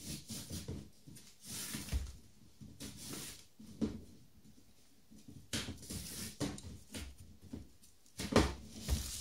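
Irregular rustles, bumps and knocks of a cardboard LEGO brick-shaped box being handled on a hard floor, with the loudest knock near the end.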